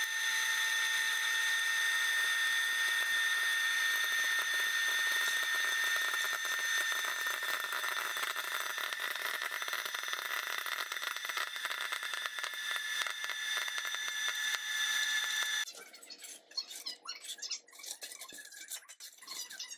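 Electric hot-air popcorn popper running: a steady fan whine and rush of hot air, with kernels popping and popcorn tumbling out of the chute, the pops coming thicker from about six seconds in. The popper switches off suddenly near the end, followed by a metal spoon scraping and clinking as it stirs popcorn in a bowl.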